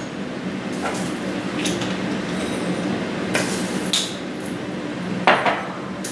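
A metal measuring spoon and glass spice jars clinking and tapping as dry seasoning is measured out: about five short, light clinks spread apart, the loudest near the end. A steady low hum runs underneath.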